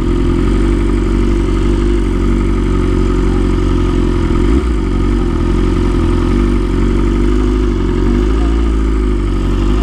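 BMW S1000RR inline-four engine running at low revs while the bike rolls slowly, its pitch rising and falling gently with small throttle changes.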